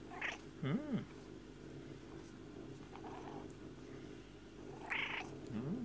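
Lynx-point Siamese-tabby cat purring steadily close by. Two short low voice sounds that rise and fall in pitch come about a second in and near the end, with a few soft rustles between.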